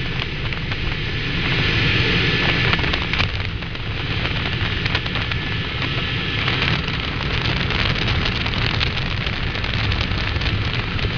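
Helicopter in flight, heard from aboard: a steady, loud rush of rotor, engine and wind noise with a low drone underneath.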